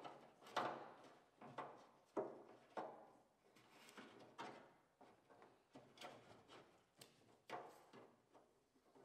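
Wiring harness with its plastic connector and rubber boot being handled and fed through a hole in the bare sheet-metal body: a string of irregular light knocks and rustles, each dying away quickly.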